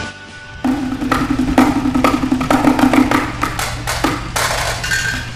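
Live improvised percussion on barrels and drums, struck with sticks: a rhythm of sharp, hollow hits, several a second, starting about half a second in.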